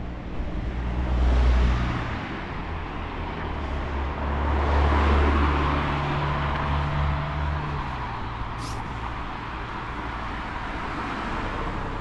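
Road traffic: motor vehicles passing close by, a short one about a second and a half in and a longer, louder one that swells and fades around five seconds in, over a low engine rumble.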